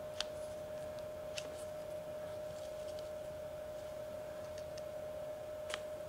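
A few faint, sharp clicks, three of them spread out, from a Permobil joystick swing-away mechanism (chain, plastic sprockets and a roller detent) being swung by hand. Under them runs a steady faint hum.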